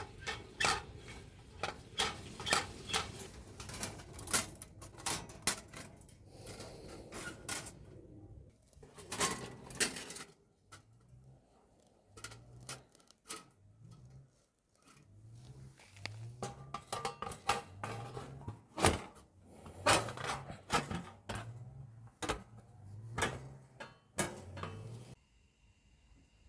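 Metal cage trap rattling and clanking in a quick irregular series of clicks and clatters, the way a cat thrashing inside a wire trap shakes it; a string of short low sounds repeats through the second half, and the rattling stops about a second before the end.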